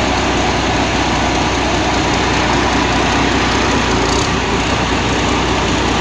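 Engine of a tracked rice combine harvester, behind Hino-badged radiators, running steadily.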